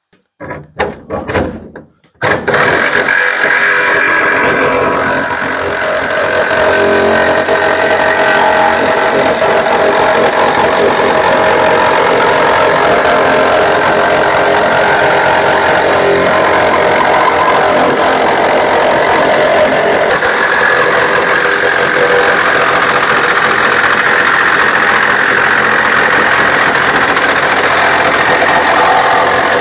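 Reciprocating saw with a fine 150 mm metal-cutting blade running steadily as it cuts through the sheet-steel panel of a van's rear door. It starts about two seconds in.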